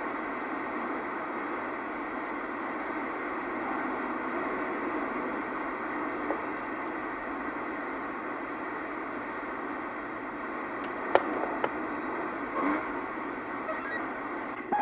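Steady hiss of open-channel static from a CB radio receiver between transmissions, with two sharp clicks about eleven seconds in.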